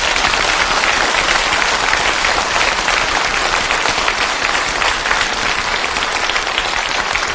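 A large audience applauding: many hands clapping at once, steady and even.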